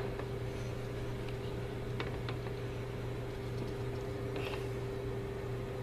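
Steady background hum with an even hiss, broken by a few faint ticks.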